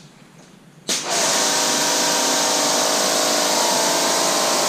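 Kranzle 1122TST electric pressure washer kicking on about a second in as the spray gun is triggered, then running steadily: the motor and pump humming under the loud hiss of the water jet.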